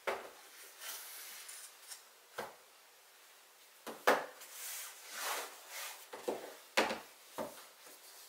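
Cardboard iPad Pro product boxes set down and slid around on a wooden tabletop: several light knocks with scraping rubs between them.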